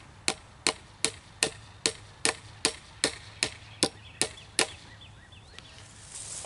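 Hammer tapping a fence staple into a wooden fence post, setting it: about a dozen even strikes, roughly two and a half a second, stopping about two-thirds of the way through.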